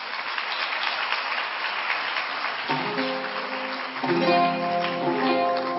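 Audience applause, then about two and a half seconds in an oud begins: single plucked notes that ring on, becoming a fuller melodic phrase a second or so later.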